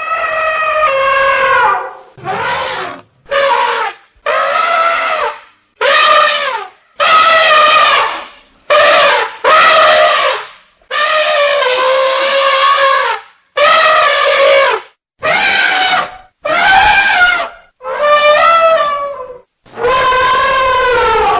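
Elephant trumpeting: a run of about fourteen loud, brassy trumpet calls, each half a second to two seconds long, many bending up and then falling in pitch, with short pauses between them.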